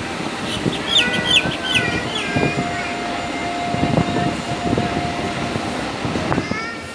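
Train running on rails: a steady rumble with irregular knocks from the wheels, short high squeals about a second in, and a steady tone held for about three seconds in the middle.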